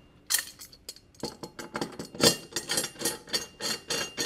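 Metal clatter of an aluminium clamp bar being picked up and set onto a conveyor-belt splicing tool: a sharp clank, then from about a second in a fast run of metallic clicks and rattles, about four a second.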